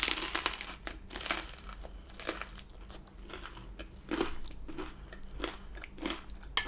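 A person biting and chewing food, opening with a loud crunchy bite, then irregular crunches and chewing about once or twice a second.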